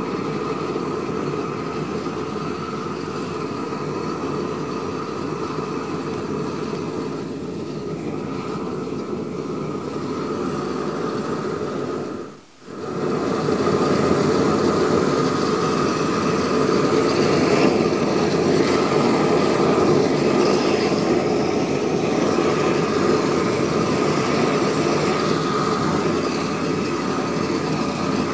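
Propane weed-burner torch burning steadily with a continuous rush of flame. The noise cuts out for about half a second near the middle, then comes back a little louder.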